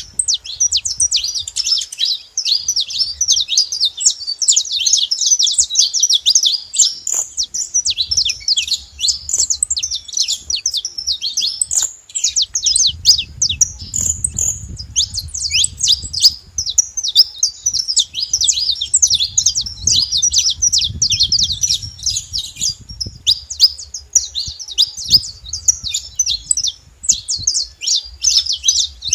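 Saffron finch singing: a fast, nearly unbroken run of high, sharp chirps and trills, with a brief lull about twelve seconds in.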